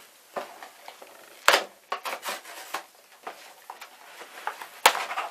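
Brown wrapping paper and cardboard packaging being torn and pulled apart by hand: irregular rustling and crackling, with two sharp, loud rips about a second and a half in and near the end.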